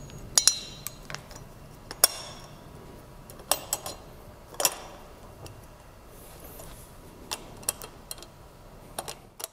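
Metal tri-clamp being closed and tightened around a joint of a stainless distillation column: scattered metallic clicks and clinks, a few of them ringing briefly, the loudest about two seconds in.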